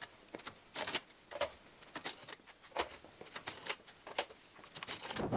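Irregular metal clicks and rattles as compute node blades are unlatched and slid out of their slots in an SGI Altix 4700 rack chassis.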